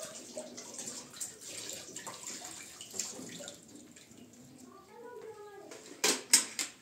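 Water running and splashing, then two sharp knocks close together near the end.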